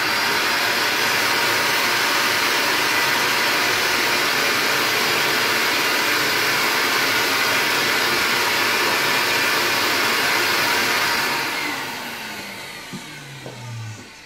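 Stainless-steel wet/dry shop vacuum running steadily while vacuuming the floor, then switched off about eleven seconds in, its motor winding down with a falling whine.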